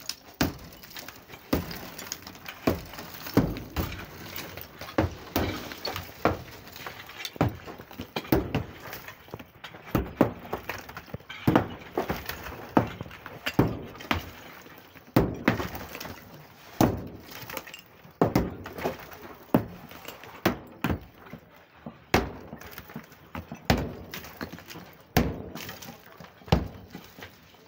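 Sledgehammer blows smashing a tiled brick wall, about one a second, each a sharp crack of breaking ceramic tile and brick followed by rubble clattering down.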